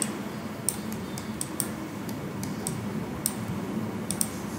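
Computer mouse clicking, about eight short, sharp clicks at irregular intervals over faint steady hiss.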